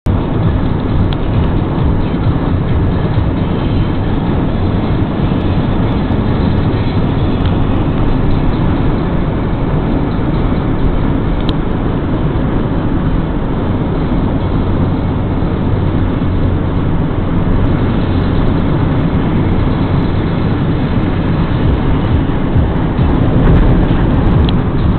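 Steady road noise of a vehicle driving along a highway, with a low hum underneath and no change in level.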